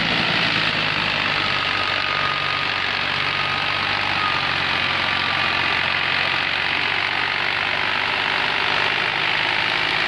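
Tractor-powered rice thresher running steadily: a New Holland 480S tractor's diesel engine drives the threshing drum through a PTO shaft while straw is fed in, making an even, unchanging mechanical noise.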